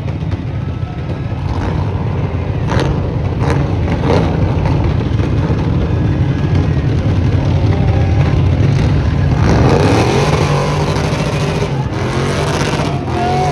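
Truck engine running at high revs, its pitch rising and falling as it is revved, with a few sharp cracks about three to four seconds in.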